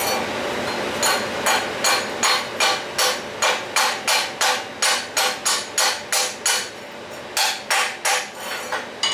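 Chipping hammer striking steel to knock the slag off a freshly laid rutile-electrode stick weld. The strikes are sharp and quick, about three a second for some six seconds, with a short pause before three more near the end.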